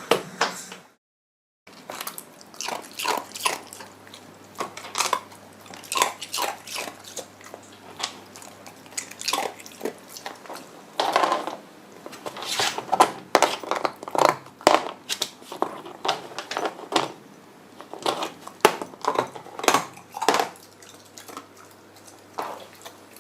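White Shiba Inu puppy biting and crunching ice, a long run of irregular sharp cracks and crunches as the ice breaks between its teeth.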